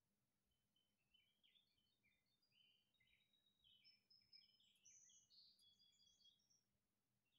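Very faint birdsong from a garden nature video playing on a television: many short chirps and trills from small birds, busiest about four to six seconds in.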